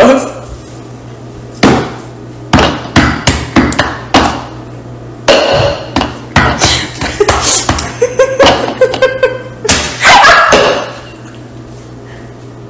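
A run of sharp knocks and slaps as hands strike a clear cup turned upside down over a raw egg on a stone countertop, many quick blows over several seconds, then a longer loud burst about ten seconds in, when the egg ends up smashed.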